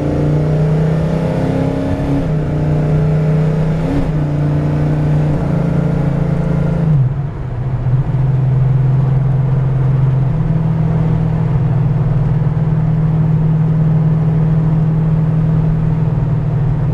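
1970 Chevrolet Chevelle SS's V8 with a big cam, heard from inside the cabin on the move: a steady deep engine note that briefly dips and drops in pitch about seven seconds in, then settles back into a steady cruise.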